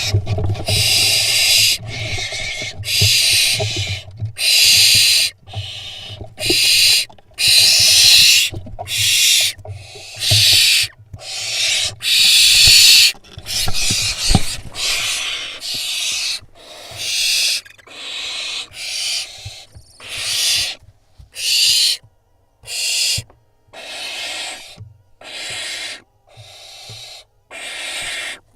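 Barn owl fledglings giving harsh hissing screeches over and over, about one a second, each lasting half a second to a second. These are the rasping calls of young barn owls competing over a vole.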